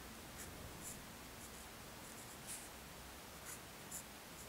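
Faint pencil strokes on paper: a handful of short scratches about half a second to a second apart as small marks are drawn.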